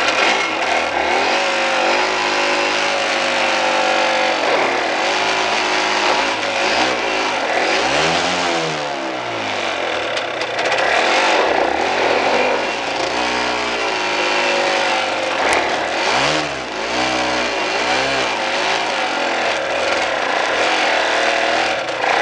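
Motorcycle engine working hard up a steep, rutted dirt climb, its revs rising and falling again and again as the rider works the throttle.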